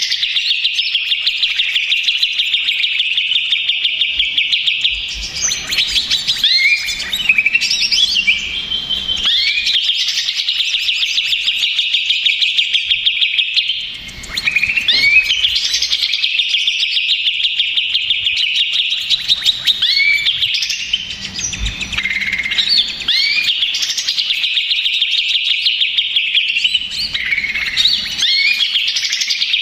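Cucak ijo (green leafbird) singing: long, rapid trills broken by stretches of varied chirps and short rising whistled notes.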